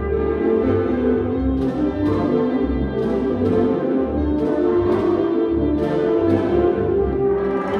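Concert band playing live in a reverberant hall: sustained brass and woodwind chords over pulsing low notes, with a run of sharp percussion strikes cutting through in the middle of the passage.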